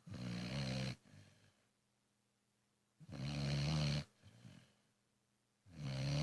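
A pet snoring loudly in regular breaths: three long, rasping snores about three seconds apart, the first two each followed by a fainter short breath sound.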